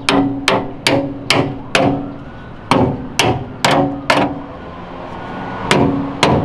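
Hammer blows on the Datsun 280ZX's sheet-steel rear fender lip, bending up the slashed tabs. Sharp metallic strikes come about two a second in runs of five, four and two with short pauses, each ringing briefly.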